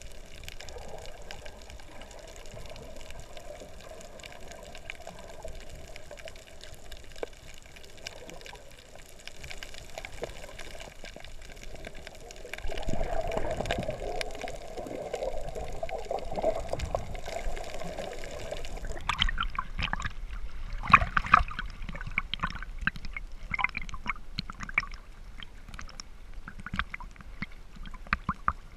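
Water washing around a camera held underwater, a muffled steady rush that swells louder about halfway through. About two thirds of the way in it gives way to irregular sharp splashing and lapping as the camera nears the surface.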